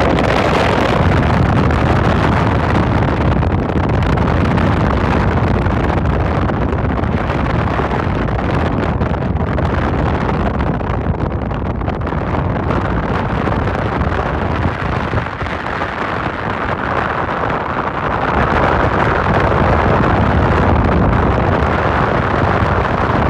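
Wind rushing past a moving car and buffeting the microphone, over steady road and engine noise, louder near the end.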